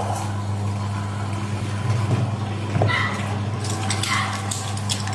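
Electric meat grinder running steadily with a low motor hum as pork is minced, with a few light knocks partway through.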